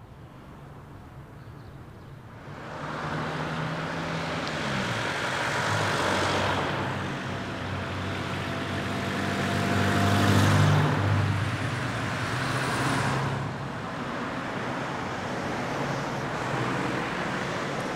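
Road traffic: a van and cars driving past one after another, tyre and engine noise building up about two seconds in, swelling and fading as each goes by, loudest about ten seconds in.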